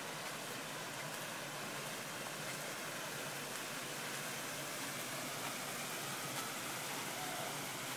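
Steady rush of running water from a rock water feature, an even hiss with no breaks or changes.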